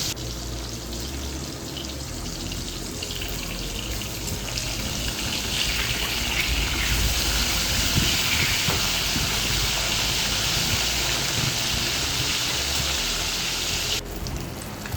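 Pieces of katla fish frying in hot oil in a kadai, with a steady sizzle that grows stronger about five seconds in and drops suddenly near the end.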